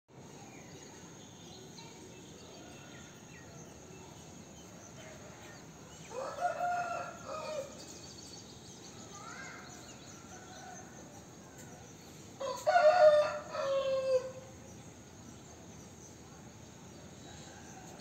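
A rooster crowing twice, the second crow louder, with faint small bird chirps between the crows.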